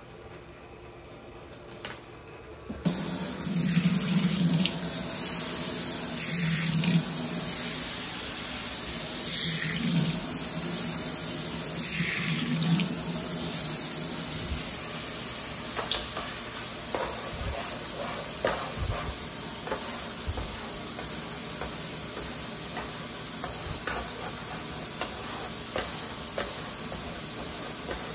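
Kitchen tap turned on about three seconds in, water running steadily into the sink, with a few light knocks and clinks.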